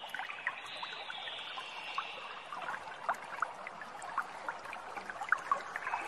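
Water trickling and lapping at a river's edge: many small, quick drips and gurgles, several a second, over a steady high-pitched hum.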